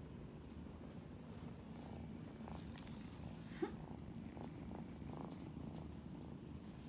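Kitten purring, a steady low rumble, with one brief, loud high-pitched sound about two and a half seconds in.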